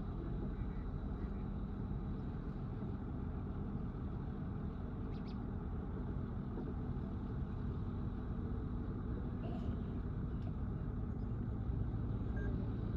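Bulldozer's diesel engine running steadily with a low hum, rising slightly in level about three quarters of the way through.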